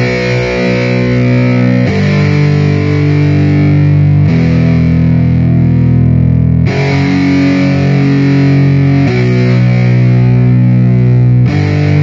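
Outro music: distorted electric guitar holding sustained chords, the chord changing about every two and a half seconds.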